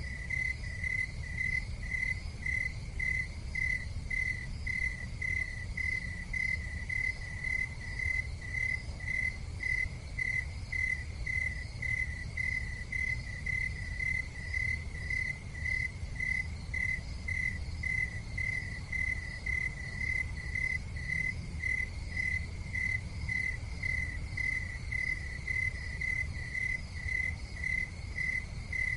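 A cricket chirping steadily, about two chirps a second, over a low steady rumble.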